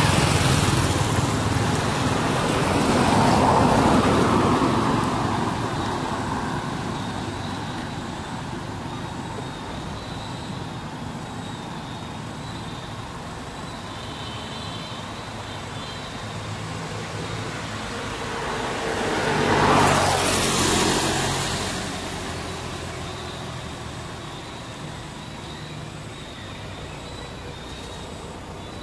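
Road traffic: motor vehicles passing by, each swelling and fading away. Pass-bys come at the very start, about four seconds in, and the loudest about twenty seconds in.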